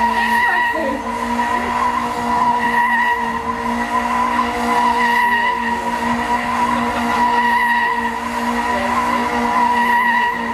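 Car engine held at steady high revs, its pitch barely changing.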